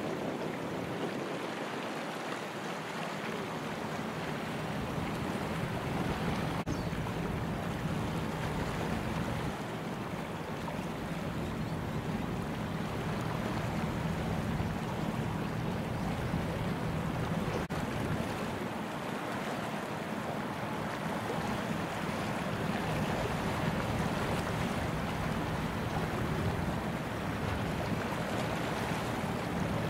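Laden gravel carrier passing: a steady rush of its bow wave and wash with a low, even engine drone underneath, and some wind rumble on the microphone.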